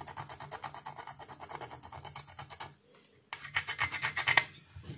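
A pointed metal tool scraping rapidly back and forth across the solder side of a printed circuit board, in quick even strokes. It stops briefly a little under three seconds in, then resumes louder and harsher for about a second.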